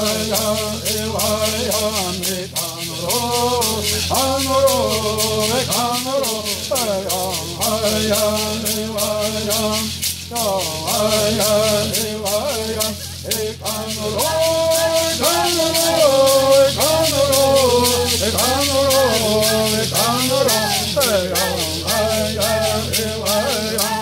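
Bird singers singing a Yuman bird song with steady shaking of gourd rattles. Near the end the singing ends on a falling slide.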